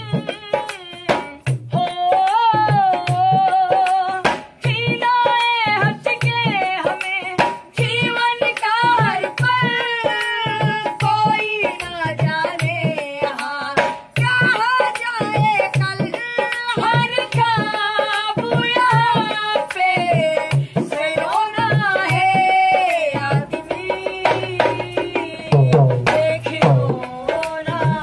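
Dholak, a two-headed rope-tuned barrel drum, played by hand in a steady rhythm, with a voice singing a bending folk melody over it.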